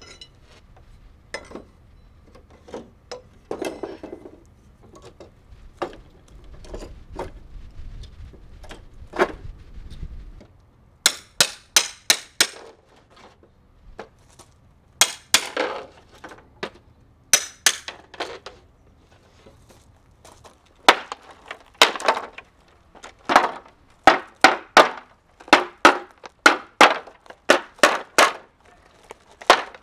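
Hammer blows on a steel pry bar, prying the nailed pickets off an old wooden fence gate. Scattered lighter knocks and creaks at first, then after about ten seconds quick runs of sharp, ringing metal strikes.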